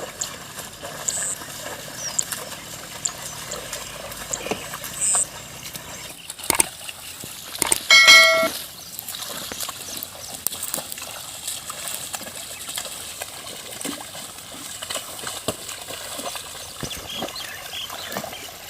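Water and wet mud splashing and trickling as a bull pulls a plough through a flooded paddy field, with scattered knocks. About eight seconds in there is a short high-pitched call lasting about half a second, the loudest sound.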